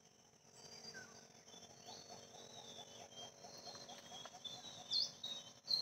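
Birds chirping and calling over a steady, high insect drone. A run of about a dozen quick, low, evenly spaced notes comes in the middle, and one louder upswept call sounds near the end.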